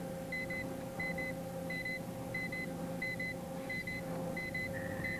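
Electronic double beeps repeating about every two-thirds of a second, like a computer plotting data point by point, over a steady electrical hum. Near the end a continuous high tone comes in.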